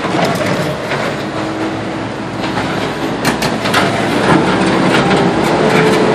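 Mini excavator running, its engine and hydraulics giving a steady hum under irregular knocks and clatter, getting louder in the second half.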